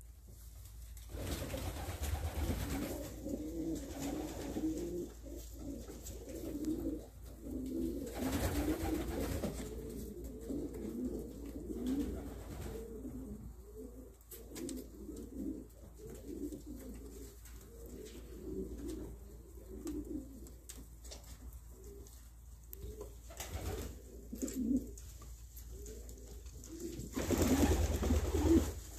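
Domestic pigeons at the nest as a parent feeds two squabs: continuous low, wavering pigeon sounds, with short bursts of rustling noise about eight seconds in and a louder one near the end.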